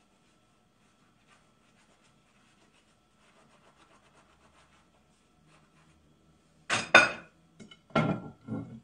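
Dishes and cutlery being washed at a kitchen sink: faint rubbing and light clinks, then a few loud, sudden clattering knocks near the end.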